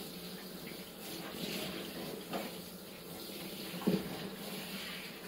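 Handheld shower spraying water over a mini pig in a bathtub: a steady rush of running water. A brief sharp sound stands out about four seconds in.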